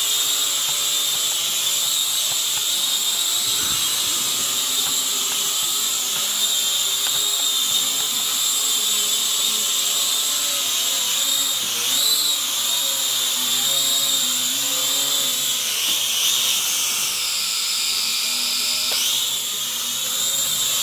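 Syma X5HW toy quadcopter hovering, its four small coreless brushed motors and propellers giving a steady high-pitched whine. The pitch dips and recovers a few times in the second half as the throttle is eased and opened again.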